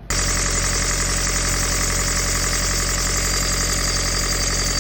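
Sailboat's inboard engine running steadily while its Balmar alternator belt squeals with a constant high-pitched tone. The owner thinks the squeak comes from the belt's rib profile, rounded rather than square grooves.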